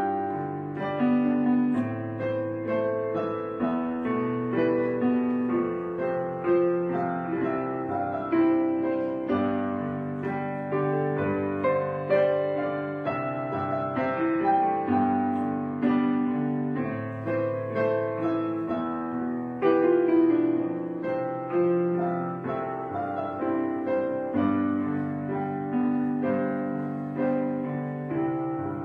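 Background piano music: a gentle melody of struck notes and chords, each left to ring and fade.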